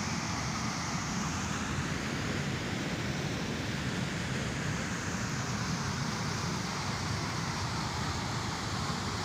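Water jetting from a dam's spillway outlet and churning into the river below, a steady, unbroken rush.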